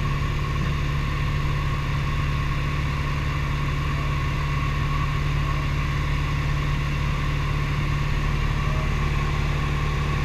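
Light aircraft engine droning steadily in cruise flight, heard inside the cabin, with a constant low hum and a fainter higher whine over a wash of air noise.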